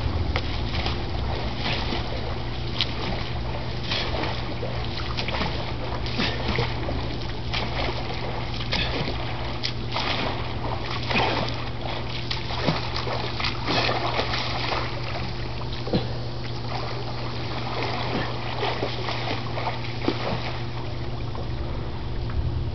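Irregular splashing and sloshing of a person swimming, with a steady low hum underneath throughout.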